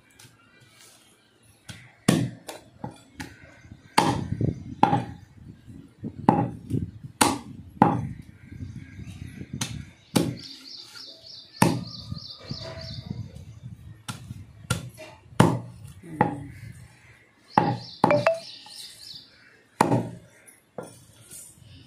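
Goat meat and bone being chopped into pieces: a string of hard, irregular chops, about one or two a second. Birds chirp in quick runs in the background.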